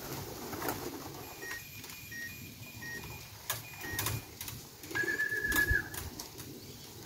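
Homing pigeons cooing at the loft, with several sharp clicks. A short high steady beep sounds about five seconds in.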